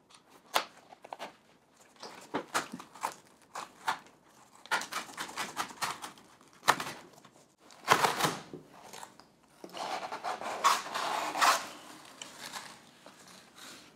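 Cardboard and plastic packaging being handled and opened by hand: a run of irregular clicks, scrapes and rustles, with a longer rustling stretch about ten seconds in.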